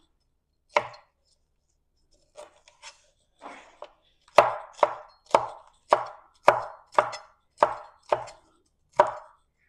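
Chef's knife slicing bell peppers into strips on a wooden cutting board, each cut ending in a knock of the blade on the board. One cut comes about a second in, then after a pause a steady run of cuts, about two a second, continues until near the end.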